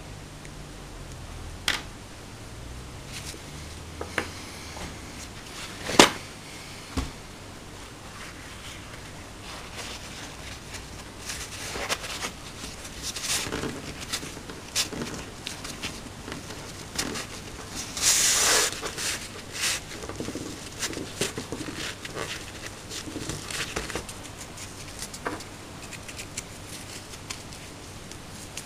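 Small metal parts of a Hi-Capa 3.8 airsoft pistol clicking and being set down on a wooden table, with the loudest knock about six seconds in. Later, a longer stretch of cloth rubbing and rustling, loudest about two-thirds of the way through.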